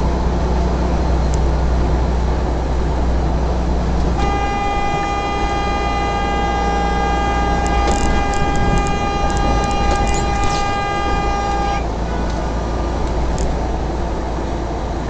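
Semi truck's horn held in one long steady blast of about seven and a half seconds, starting about four seconds in, over the truck's steady engine and road drone. It is sounded at a taxi that has cut into the lane just ahead.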